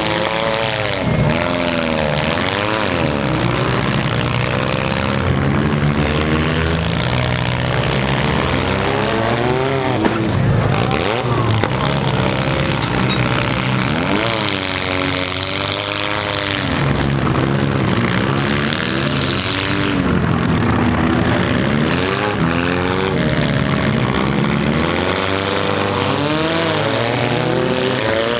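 Several four-cylinder demolition-derby cars' engines revving hard at once, their pitches repeatedly rising and falling as the cars accelerate, reverse and ram each other, with an occasional thump of a collision.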